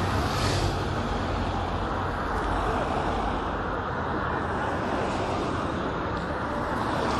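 Cars of a motorcade passing on the street: a steady rush of engine and tyre noise, with a brief swish about half a second in as a black sedan goes by.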